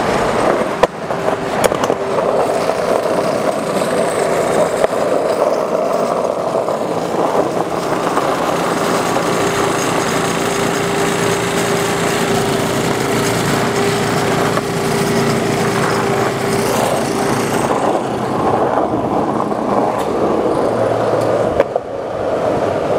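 Skateboard wheels rolling steadily over asphalt, a continuous loud rumble, with a brief knock near the end.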